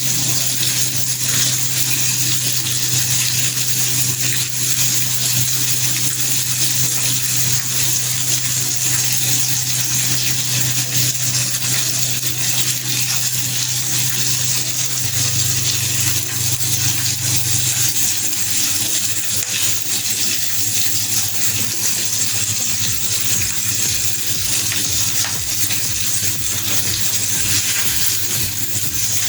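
Rohu fish pieces frying in mustard oil over a high gas flame: a steady, loud sizzle. A low steady hum runs underneath.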